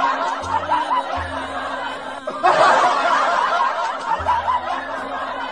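Background music with people laughing over it; a fresh burst of laughter comes about two and a half seconds in.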